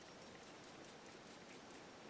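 Near silence: room tone with a few faint, light ticks.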